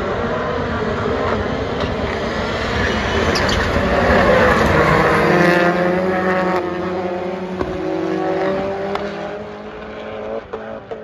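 Race car engines running hard on a circuit, rising in pitch as the cars accelerate through the middle, then fading as they move away, with a few sharp pops near the end.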